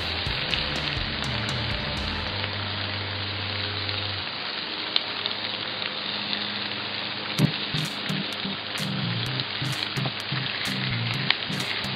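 Bacon strips and sausage patties sizzling steadily on a hot 28-inch Blackstone flat-top griddle. Background music with a bass line runs underneath; it drops away about four seconds in and comes back with a pulsing beat about halfway through.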